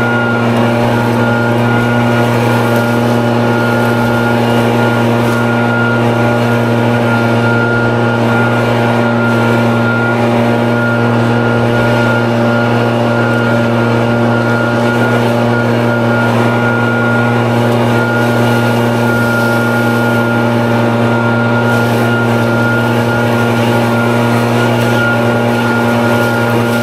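Gas-powered leaf blower engine running steadily with an even, unchanging pitch.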